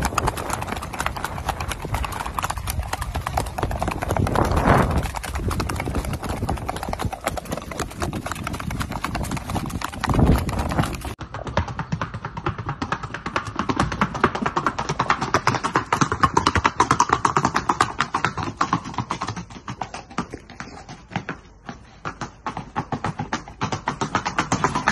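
Rapid, even clip-clop of a ridden Mangalarga Marchador horse's hooves at its gait, first on a dirt track, then, after about eleven seconds, on a paved stable alley.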